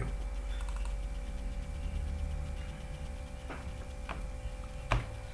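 Steady low electrical hum, with three sharp clicks in the last two seconds, the last one the loudest: keys being typed on a computer keyboard as a value is entered.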